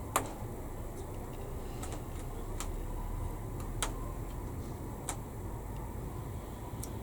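Small sharp clicks and taps of plastic scale-model kit parts being handled: about six scattered clicks, the loudest right at the start, over a faint low hum.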